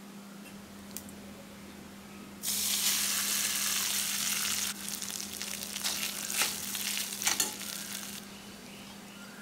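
Tempering of mustard seeds and dals in hot oil in a steel kadai sizzling loudly as ingredients go in, about two and a half seconds in. It is followed by a spatula stirring and scraping in the pan with lighter sizzling, which stops near the end.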